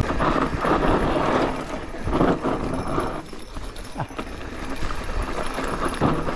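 Mountain bike rolling down a narrow dirt singletrack through dense brush: tyres crunching on the dirt, the bike rattling over bumps, and bushes swishing and scraping against bike and rider in uneven surges.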